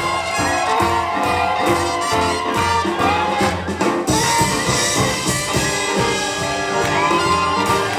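Live swing jazz from a small band: horns playing bending melodic lines over a steady rhythm section.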